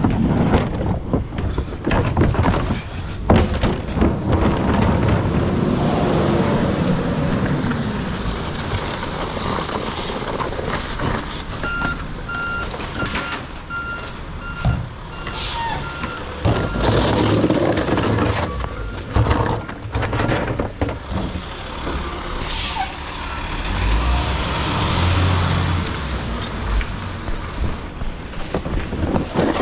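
Garbage truck running, with repeated clanks and knocks. Its reversing beeper sounds for a few seconds near the middle, at about two beeps a second, and the air brakes let out two short hisses.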